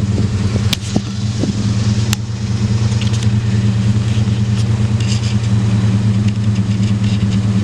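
1999 Ford Ranger engine idling steadily at about 1,000 RPM. It runs smoothly now that the leaking hose under the throttle body has been replaced, which has cured the rough idle. A few light knocks sound in the first two seconds.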